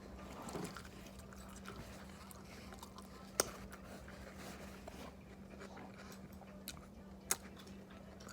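Close-up eating sounds: chewing and biting with soft crunches and mouth clicks, and two sharper clicks about three and a half and seven seconds in, over a faint steady hum.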